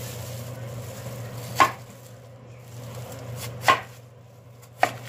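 Large kitchen knife slicing through a peeled taro corm and striking a wooden cutting board: three sharp chops, the last about a second after the second.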